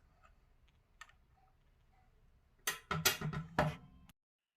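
Faint clicks, then a short cluster of sharp knocks and clatter near the end as small tools and objects are handled on a hard surface. The sound cuts off abruptly.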